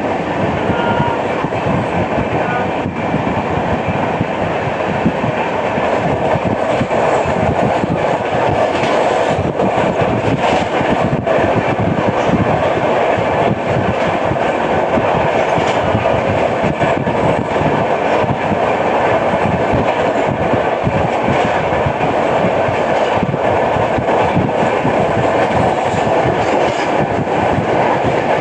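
Express passenger train running at speed, its wheels clattering continuously over the rails, with a wheel beat the uploader puts down to a flat wheel.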